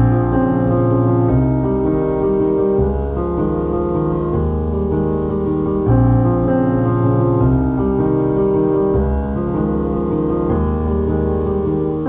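Background piano music with held chords that change every second or two.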